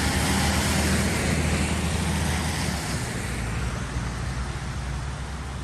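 Flooded creek rushing, a steady loud roar of churning water with a deep rumble underneath, easing a little about halfway through.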